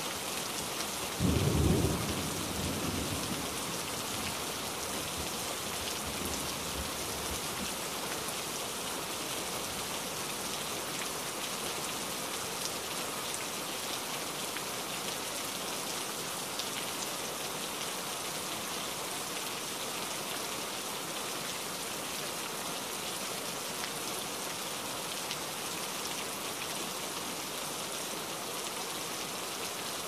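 Steady rain falling, with one loud clap of thunder about a second in that rumbles away over the next few seconds.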